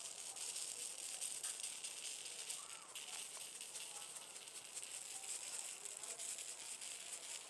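Gold glitter shaken from a shaker-top jar: a steady, soft, high hiss of fine granules rattling out of the lid and sprinkling onto the glue-coated rod and newspaper.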